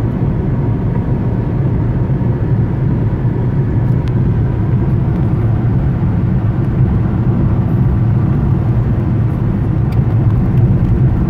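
Steady drone of a car driving on a highway, heard inside the cabin: tyre and engine noise, low and even throughout.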